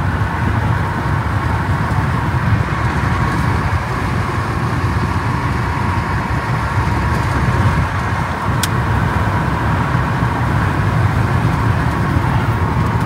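Steady road and engine noise heard inside the cabin of a moving car, a low rumble with tyre hiss. A short faint click about two-thirds of the way through.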